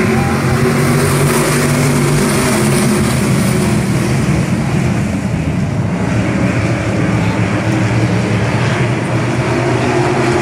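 A field of IMCA stock cars racing on a dirt oval, their V8 engines running hard together as the pack passes the front stretch, loud and steady.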